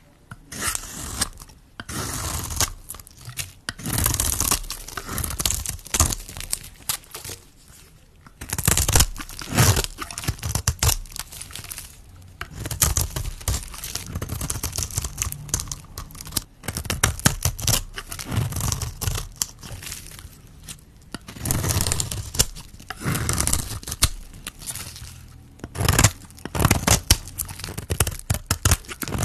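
Soap being cut with a blade: a dense crackle of many tiny clicks in repeated cuts lasting one to a few seconds each, with quieter gaps between.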